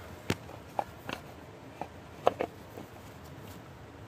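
Scattered light clicks and taps, about half a dozen over the few seconds, over a faint steady background: handling noise of hands and phone moving around an old truck's engine bay.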